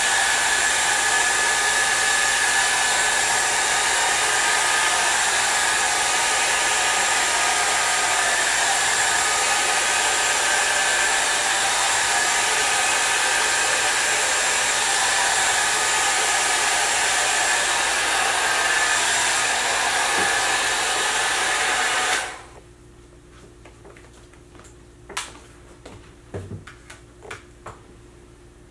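Small handheld hair dryer running steadily on its low setting, a whir with a faint whine in it, then switched off abruptly about 22 seconds in. A few faint clicks and taps follow.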